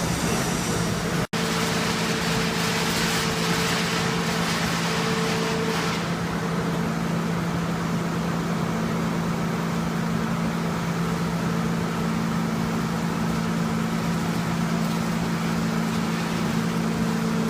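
Metal baling press running: a steady machine hum with a noisy mechanical wash over it, which cuts out for an instant about a second in.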